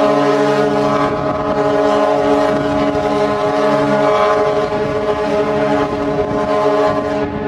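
Cruise ship's horn sounding one long blast, a steady chord of several pitches that cuts off sharply about seven seconds in. Its lowest notes fade out around four seconds in.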